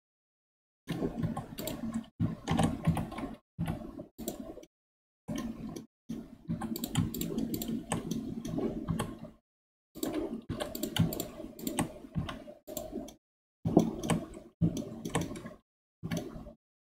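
Computer keyboard keys being pressed in quick irregular bursts, a dense clatter of clicks, with dead silence between the bursts.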